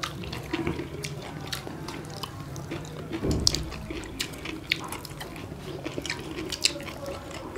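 People eating roast chicken with their fingers: wet chewing and lip-smacking with a scatter of sharp mouth clicks, and one short dull thud a little past three seconds in.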